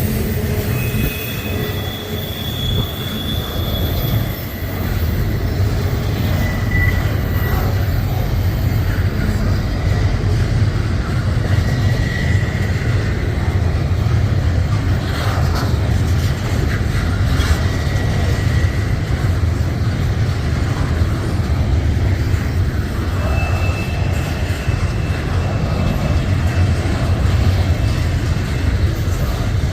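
Train rolling past with a steady rumble of wheels on rail and brief high-pitched wheel squeals now and then.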